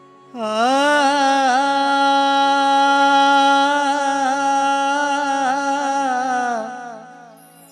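A man singing one long held note as the opening of a song: his voice slides up about half a second in, holds the note with small ornamental turns, and falls away near the end.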